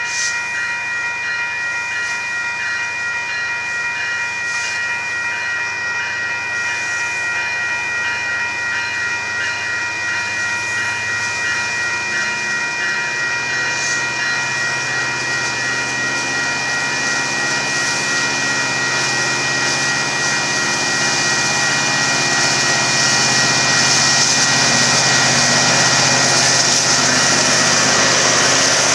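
Grade-crossing warning bell ringing steadily throughout. About a third of the way in, the low sound of approaching freight diesel locomotives joins it and grows louder. Near the end, wheel and rail noise builds as the lead locomotives reach the crossing.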